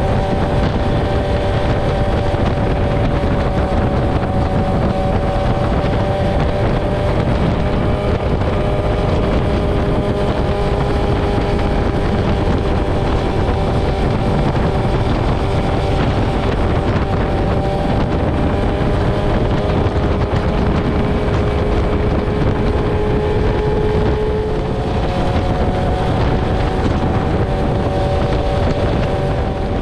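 Sportbike engines running at a steady cruising speed, the engine note holding steady with one brief dip and change in pitch near the end. Heavy wind noise on the helmet or bike-mounted microphone.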